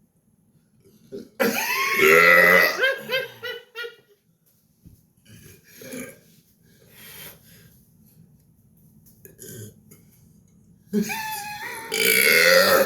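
A person burping deliberately: two long, loud burps, the first about a second and a half in and the second near the end, each with a wavering pitch.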